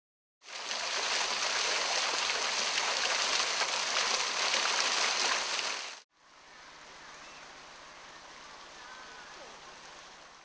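A loud, steady rushing noise, like running water or static, starts suddenly and cuts off abruptly after about five and a half seconds. It gives way to a much quieter steady hiss with a few faint high chirps.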